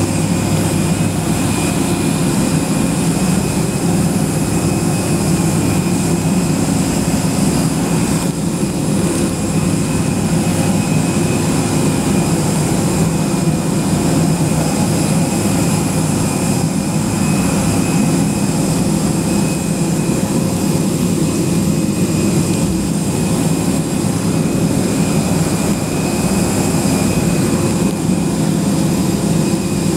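Steady jet aircraft turbine noise: a continuous low rumble under a high whine made of several held tones.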